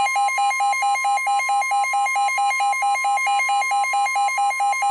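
NOAA Weather Radio alert tones for a severe thunderstorm warning: a steady, loud 1050 Hz warning alarm tone under a louder, buzzy electronic alarm beeping rapidly, about five beeps a second. Together they signal the start of an emergency weather warning.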